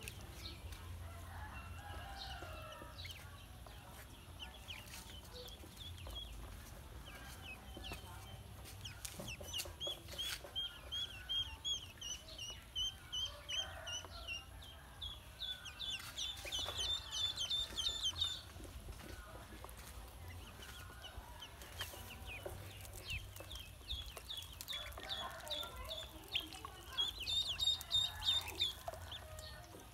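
A group of ducklings peeping: runs of quick, high, falling cheeps, sparse at first, then a busy chorus from about ten seconds in and again near the end.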